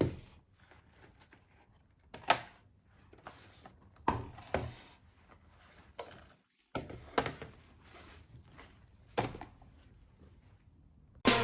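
Scattered knocks, taps and clicks of objects being handled and set down, about nine separate sounds at irregular intervals, with a short dead gap a little past the middle.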